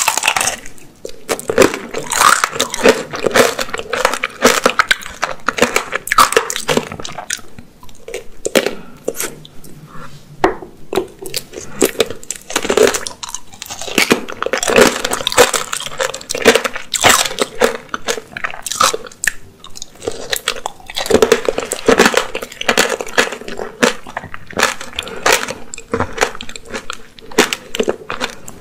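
Close-miked biting and chewing of apricot tanghulu: the hard sugar-candy shell cracks and crunches between the teeth in repeated clusters of sharp crackles, with chewing of the fruit in between.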